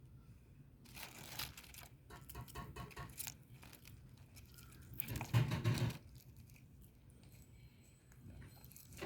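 Handling noise: rustling and tearing in several bursts, some with quick repeated strokes, the loudest lasting about a second about five seconds in.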